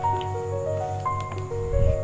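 Background music: a slow melody of single held notes stepping up and down over a steady low pulse. A dull low bump comes near the end.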